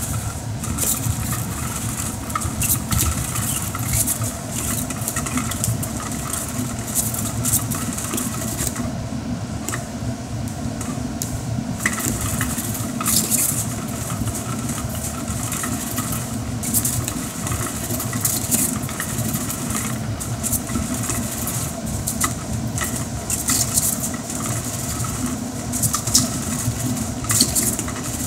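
A small motor running steadily, with scattered light clicks and taps over it.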